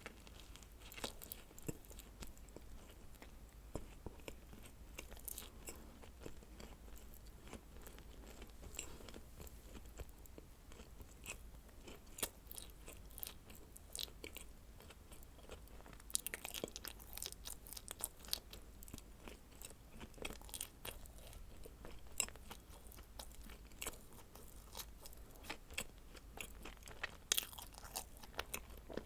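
Person biting and chewing dacquoise cookies, with irregular small crisp crunches and clicks from the meringue shells, which come thicker about halfway through.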